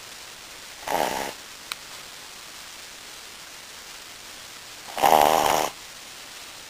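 A sleeping Brussels Griffon, a flat-faced dog breed, snoring. There are two snores: a short one about a second in and a longer, louder one about five seconds in.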